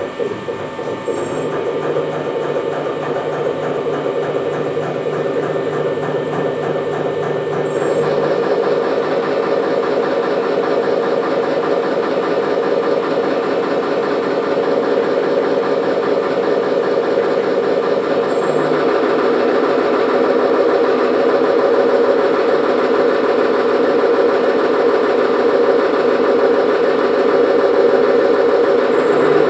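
ST05G-CNC gamma-type Stirling engine running on a dynamometer test stand: a steady, rapid mechanical clatter from the running engine, getting gradually louder, with a steady high-pitched whine alongside.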